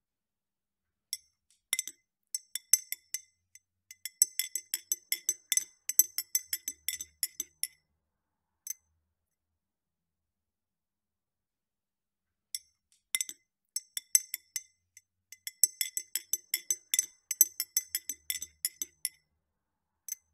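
Metal spoon stirring ice cubes in a glass: rapid, ringing clinks of spoon and ice against the glass in two bouts of several seconds each, with a pause of a few seconds between them.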